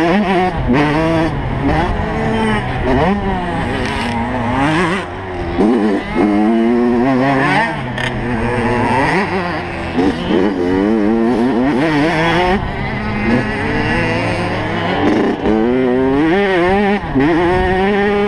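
85cc two-stroke motocross bike engine heard close from on board, revving up and dropping back over and over as the rider accelerates, shifts and slows around the track.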